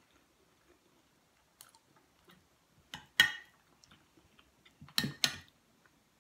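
Soft chewing with a few small clicks, broken twice by a metal spoon clinking and scraping against a plate or bowl, about three seconds in and again about five seconds in, each a quick pair of ringing strikes.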